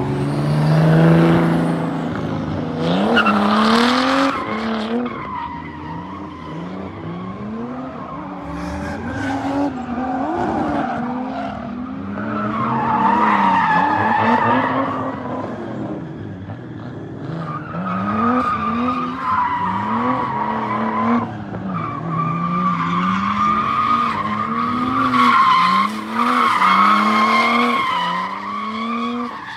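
Drift cars' engines revving up and falling back again and again as they slide, with tires squealing in long held stretches, mostly from the middle on.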